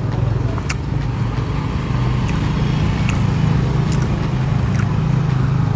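Steady low hum of a running engine, with a few faint clicks over it.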